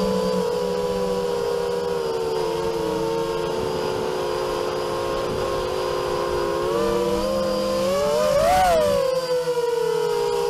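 Multirotor drone's electric motors and propellers whining steadily, heard close up from its onboard camera, several tones wavering together. About eight and a half seconds in the pitch climbs sharply, then drops back within about a second.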